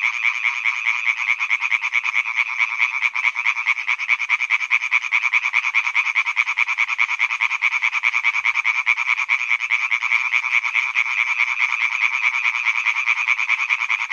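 A chorus of male European tree frogs calling from a pond: many rapid pulsed calls overlapping into a loud, unbroken din. These are the males' breeding advertisement calls.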